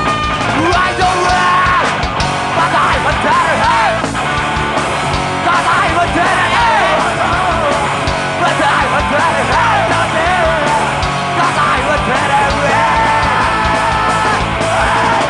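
Punk rock band playing a song loudly, with yelled vocals over the full band.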